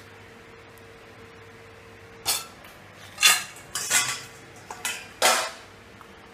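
Metal kitchen utensils and pans clattering: a quick series of loud knocks and short scrapes, starting about two seconds in and over within a few seconds.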